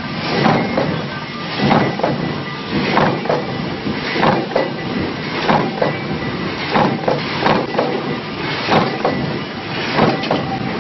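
Mechanical punch press running a progressive stamping die for concealed cabinet hinge parts, striking with a sharp metallic stroke a little more than once a second over a steady machine din.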